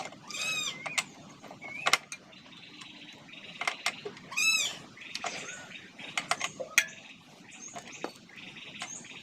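A cat meowing several times in short, rising-and-falling calls, with sharp metallic clinks of a spanner on a wheel bolt in between.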